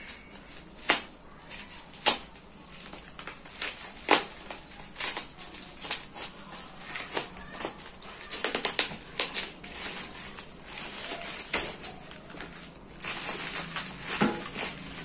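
Cardboard package being worked open by hand: a string of sharp clicks, scrapes and crinkles, with loud snaps about 1, 2 and 4 seconds in and a denser tearing rustle near the end.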